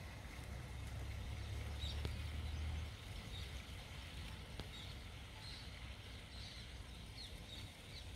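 Rural field ambience: a low rumble that is strongest for the first three seconds, with scattered short, high bird chirps.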